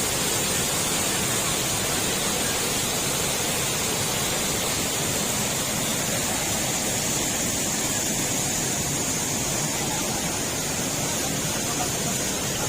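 Waterfall crashing down, a steady, even rush of falling water with no breaks.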